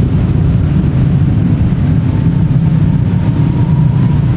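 Passenger train moving through the station tracks: a steady, loud low rumble.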